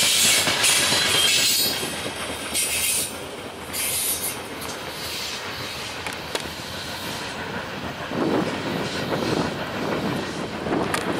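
A loaded freight train's cars rolling past with wheels squealing and a clickety-clack over the rails; the squeal is loudest in the first two seconds, then the passing quiets.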